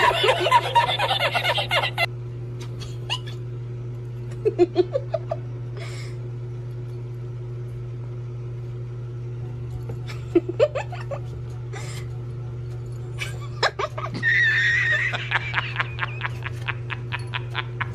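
A cat meowing a few short times over a steady low hum, with a man's laughter in the first two seconds.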